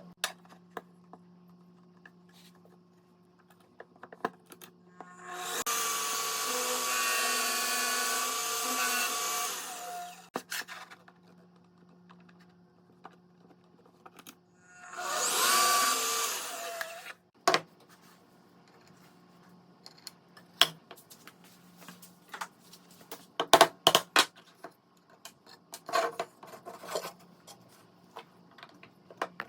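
A small power tool runs twice on wood, about four seconds and then about two seconds, winding down after each run. It is followed by scattered sharp knocks and clicks of wood pieces being handled.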